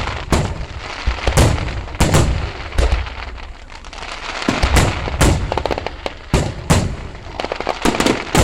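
Fireworks bursting in quick succession: sharp booms about one to two a second, with runs of rapid crackling in the middle and near the end.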